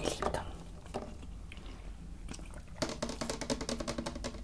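Close-miked wet chewing and mouth sounds while eating, starting with a sharp click and ending with a quick run of small wet clicks over the last second and a half.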